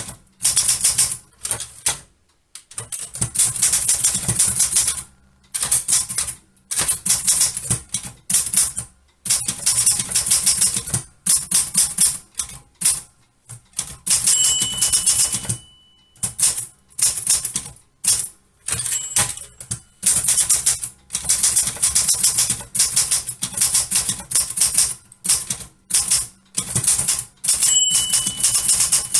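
Manual typewriter being typed on: runs of rapid key strikes broken by short pauses. The margin bell rings near the end of a line, once about halfway through and again near the end.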